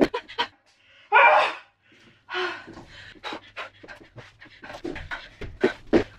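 A woman panting and gasping hard from the exertion of doing burpees, with a loud, drawn-out breath about a second in and another soon after. Short sharp knocks of her shoes landing on the wooden floor run between the breaths.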